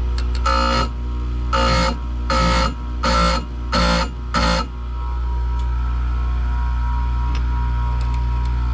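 Oregon bench chain grinder running with a steady motor hum while its grinding wheel is brought down onto a saw-chain tooth six times in quick short passes, each a bright, ringing grind, within the first five seconds; after that only the motor runs.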